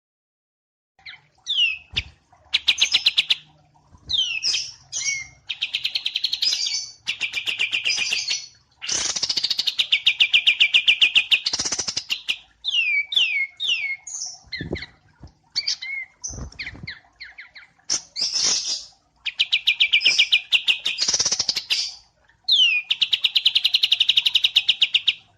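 Songbird song from a wambi mini and kapas tembak masteran recording: fast, rattling trills high in pitch, often introduced by quick downslurred whistled notes. They come in bursts of one to three seconds with short gaps, and a few brief low thumps fall among them.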